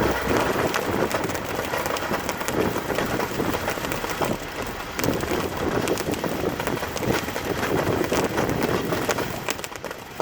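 Super Blaster firework fountain burning: a steady spray-like hiss with many small crackles through it, easing off slightly near the end.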